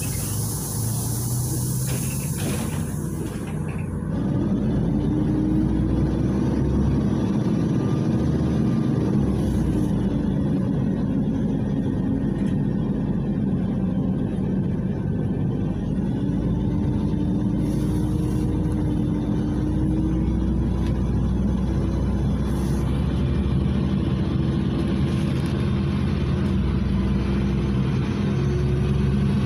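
Inside a moving LiAZ 5292.67 city bus: its Weichai WP7NG280E51 compressed-natural-gas engine and drivetrain running under way. There is a hiss in the first few seconds, then the engine gets louder about four seconds in, with a whine that rises in pitch, and rises again about halfway through.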